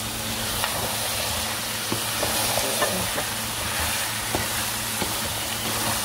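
Chicken pieces and green capsicum frying and sizzling in a pan as a spatula stirs them, with steady sizzling and scattered short clicks and scrapes of the spatula against the pan.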